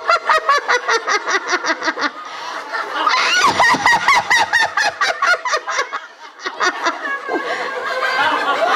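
A group of women laughing hard on purpose as a laughter exercise, in fast rhythmic 'ha-ha-ha' bursts about five a second. The laughter dips briefly about six seconds in, then picks up again.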